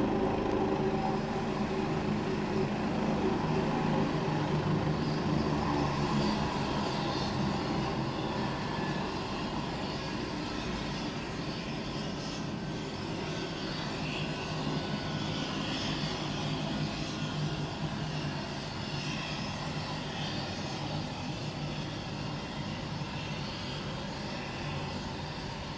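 Bell 429 GlobalRanger helicopter running on the ground: twin turboshaft engines whining and the main rotor turning, a steady sound that eases a little in level over the first half.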